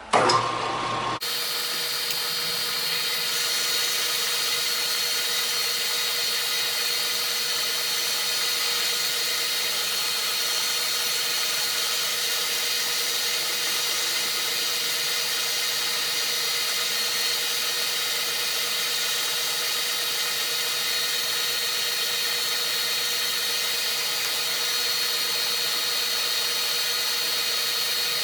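Metalworking machine tool running steadily with a constant whine during a light 10-thousandths cleanup boring pass in a steel part.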